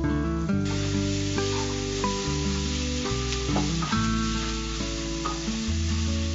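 Grated raw mango with onion and spices sizzling in hot oil in a frying pan as it is stirred with a spatula. The sizzle comes up about half a second in. Background music with held notes plays underneath.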